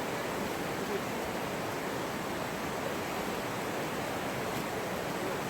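Steady rush of falling water from a waterfall: an even, unbroken noise, with faint voices far in the background.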